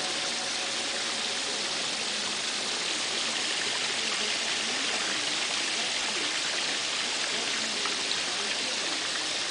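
Running water, a steady even rush.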